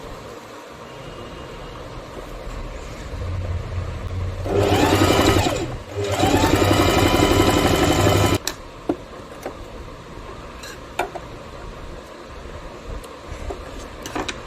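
Singer Heavy Duty sewing machine stitching in two bursts with a short break between, the motor speeding up at the start of each. It stops suddenly about eight seconds in, and a few light clicks follow.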